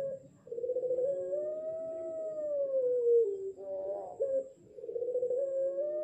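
A young puter pelung (ring-necked dove), about six months old and still learning its song, cooing in long, drawn-out, howl-like notes. One long note wavers at first, then rises and falls over about three seconds. A short note follows, and another long note starts near the end.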